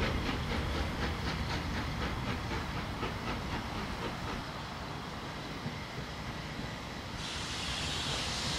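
Southern Railway S15 steam locomotive working away with its exhaust beats at about four a second and a low rumble, both fading out over the first few seconds as the train recedes. About seven seconds in, a steady hiss starts.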